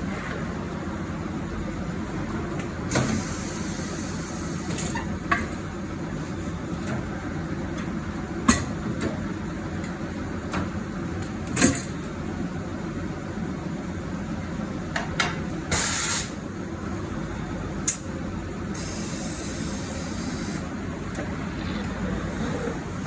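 Tyre-change work: scattered sharp clicks and knocks and a few short bursts of hissing air over a steady background hum.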